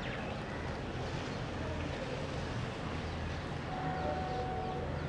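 Steady outdoor background noise with a low rumble underneath; a faint steady tone comes in near the end.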